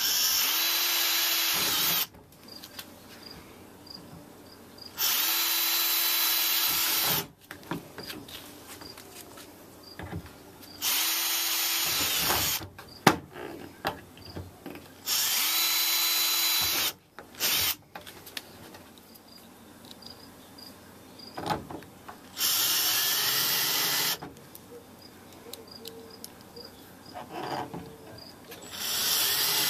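Power drill boring screw holes for the hinge brackets on a compost tumbler's lid. It runs in six separate bursts of about two seconds each, spinning up at the start of each, with light handling clicks in the pauses; the last burst begins near the end.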